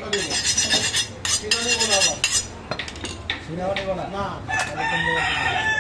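Rooster crowing, with its clearest long rising-and-falling calls in the second half, over a few sharp knocks of a butcher's cleaver on a wooden chopping block.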